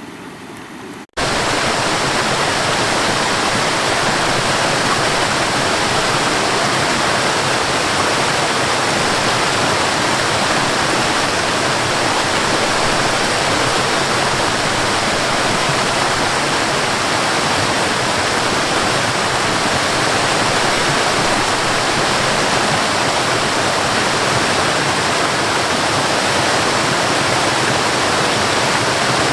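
Water pouring over a high waterfall, a loud steady rush. It starts about a second in, after a softer rushing sound that cuts off in a brief gap.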